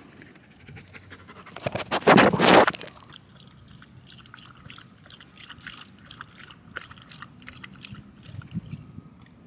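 Golden retriever lapping water from the trough of a portable dog water bottle: quick, wet laps at about two to three a second. A loud rushing burst comes about two seconds in, before the laps begin.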